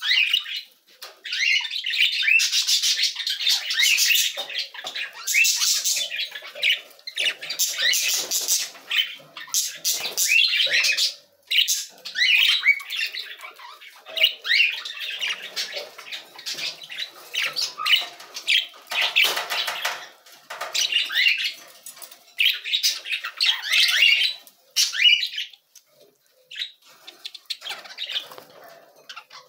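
Budgerigars chattering and warbling: a fast, continuous run of high chirps and squawks, with a brief pause about a third of the way in and sparser calls near the end.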